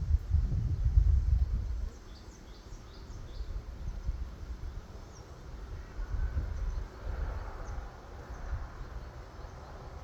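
Outdoor ambience beside a beehive: a low rumble on the microphone for the first two seconds, then quieter with a few short high bird chirps.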